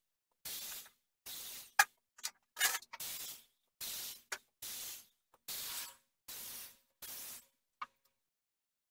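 Gravity-feed spray gun hissing in short bursts of about half a second, some eight passes in a row, with a few sharp clicks between them.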